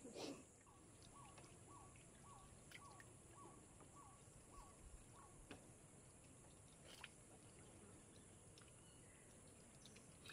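Faint rainforest ambience: a steady high insect buzz, and a bird's run of about nine short falling whistled notes, evenly spaced about half a second apart, that stops about halfway through. A few faint clicks.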